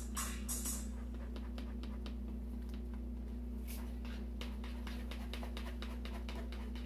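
A spoon scraping and tapping in a plastic sieve as pineapple pulp is pressed through it: a run of light, irregular clicks and scrapes over a steady low hum. Music cuts off about a second in.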